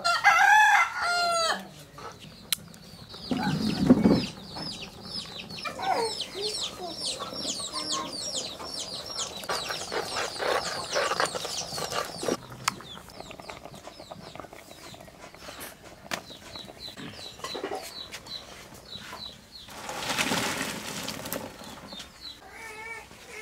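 Domestic chickens: a hen calls at the start, then chicks cheep in a long run of quick, high, falling chirps. There is a heavy thud about four seconds in and a short burst of noise near the end.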